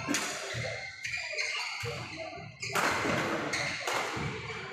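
Sharp knocks ringing in an echoing hall, several in a few seconds, the loudest about three seconds in, typical of badminton rackets hitting shuttlecocks on the courts.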